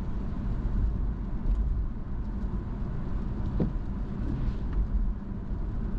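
Steady road and engine rumble of a car being driven, with a brief high chirp about three and a half seconds in.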